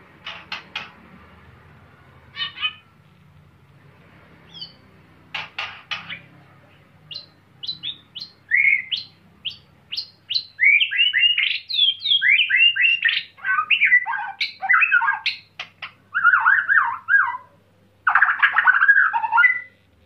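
White-rumped shama singing: a few short, scattered calls at first, then from about the middle a fast, loud, varied run of quick sweeping notes that goes on until just before the end.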